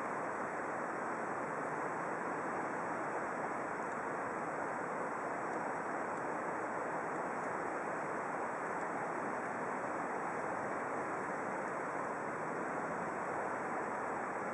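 Steady, even outdoor rushing noise with no distinct events.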